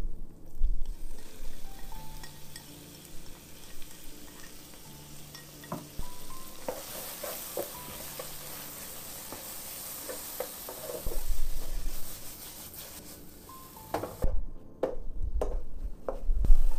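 Chicken, chillies and garlic sizzling in hot oil in a wok while a wooden spoon stirs and scrapes them. The sizzle swells in the middle, and the spoon knocks against the pan a few times near the end.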